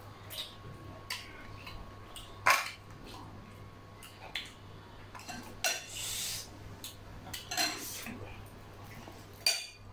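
Metal spoons and forks clinking and scraping on ceramic plates, a handful of separate sharp clinks with the loudest about two and a half seconds in. A steady low hum runs underneath.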